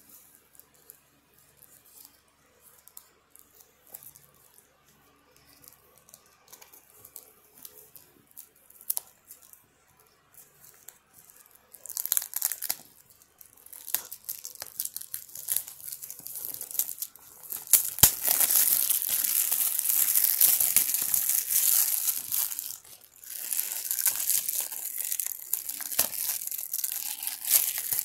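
Plastic shrink wrap being torn and peeled off a DVD case, crinkling. It starts as quiet scattered rustles and clicks, then grows into loud continuous crinkling and tearing for the second half.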